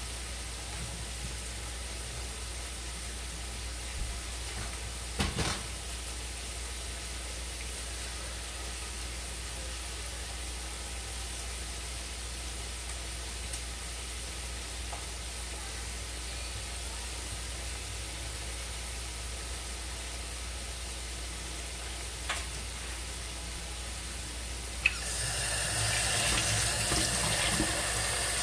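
Steady low hiss with a few light knocks, then near the end a tap is turned on and water runs into a sink for about four seconds before stopping.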